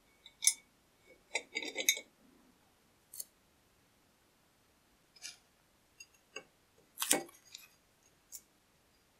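Handling sounds of a cast-iron charcoal iron cover and its steel handle, with masking tape being pulled and pressed onto the cover: scattered light clicks and taps, and a short crinkly rasp about seven seconds in.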